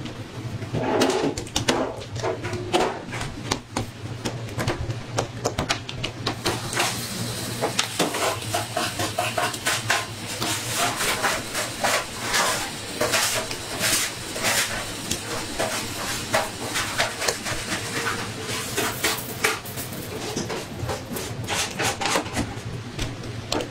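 Kitchen work clatter: frequent knocks and clinks of metal trays and utensils against a stainless-steel worktable, over a steady low hum.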